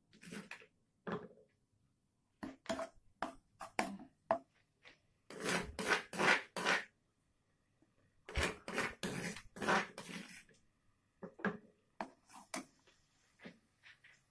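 Ground shallot-and-garlic paste sizzling and spattering in hot oil in a wok, in irregular bursts that are strongest in two stretches in the middle.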